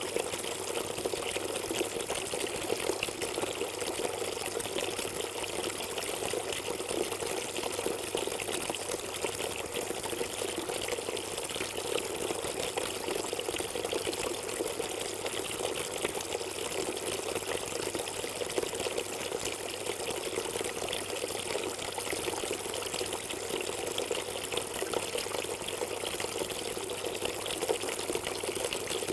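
Kelkay Easy Fountain 'Cotswold Trough' garden water feature running steadily: thin streams of water pour from its spout and tap and splash into the water pooled in its troughs.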